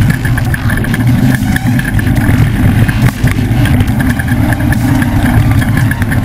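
Engine of a Ford desert race truck running steadily, a loud, low, rough drone, with a fast, higher clicking over it at times.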